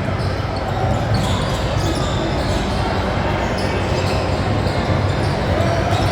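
Basketball being bounced on a gym court during play, heard as many scattered short knocks over a steady low background rumble.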